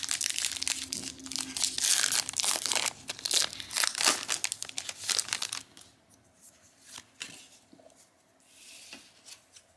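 A Disney Lorcana booster pack's wrapper being torn open and crinkled, loud and crackling for about the first six seconds. After that it is much quieter, with a few faint ticks.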